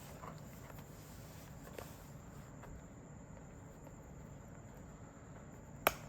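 A knife working at the seal of a cardboard box. It makes faint scratching and a few light ticks, then one sharp click near the end, as the slightly dull blade struggles to cut through.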